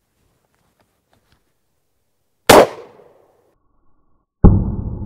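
Pump-action shotgun, a Wilson Combat Standard built on a Remington 870, fired once with No. 8 birdshot: a sharp shot about halfway through with a brief ring. Near the end the same blast is heard again, duller, with a long low rolling echo, from a camera set by the target.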